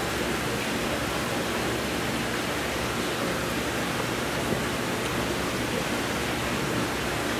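Steady rushing water noise inside a large seawater fish tank, from its water circulation and aeration.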